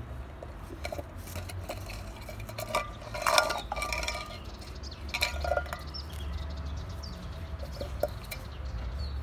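Empty tin can clinking and clattering on pebbled concrete as a Labrador puppy noses, bites and pushes it around, with short ringing knocks of metal. The loudest clatter comes about three seconds in, with another burst of clinks around five seconds.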